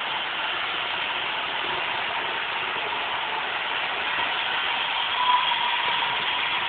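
Roomba robot vacuum running: a steady whirring hum of its motor and brushes, with a faint constant whine.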